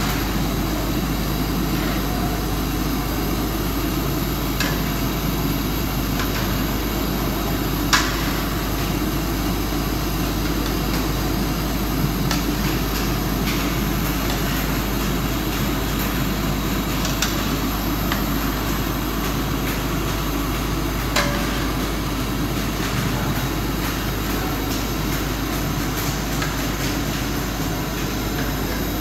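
Steady rushing roar of a gas burner under a large steel karahi. Now and then a metal paddle clanks against the pan as grated carrots and sugar are stirred, with sharper knocks about 8 and 21 seconds in.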